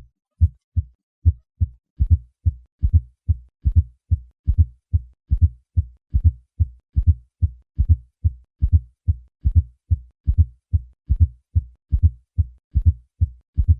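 Heart sounds in a steady, even beat of low, short thuds, a little over one beat a second. A faint fourth heart sound comes just before each first sound, giving the triple rhythm of an atrial gallop, the sign of a stiff, non-compliant left ventricle.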